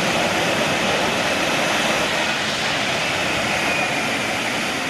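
Steady jet aircraft engine noise with a faint high whine.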